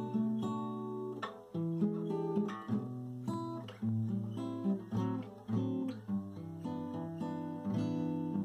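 Background music played on acoustic guitar: a run of plucked notes and chords.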